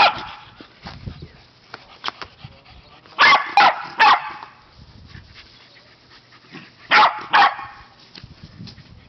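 Pembroke Welsh corgi barks in short sharp bursts: one at the start, three in quick succession about three seconds in, and two more about seven seconds in, the dogs barking for a toy bone held out for fetch.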